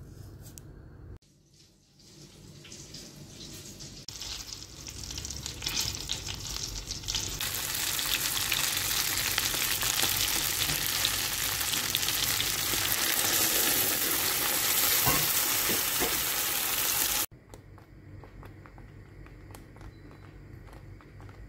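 Food frying and sizzling in a hot pan, building up over several seconds to a loud, steady sizzle that stops abruptly near the end.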